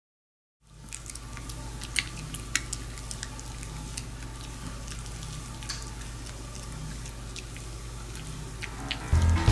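Maltese dogs gnawing dried pollack: scattered crisp crunches and clicks of teeth on the dry fish, over a steady low electrical hum. It begins after a moment of silence.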